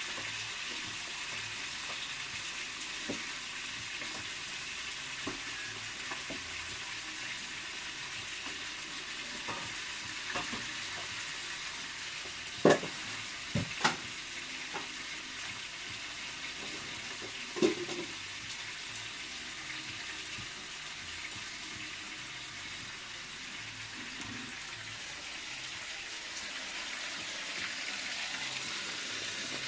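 Food frying in hot oil with a steady sizzle, broken by a few sharp knocks of a utensil against the pan near the middle.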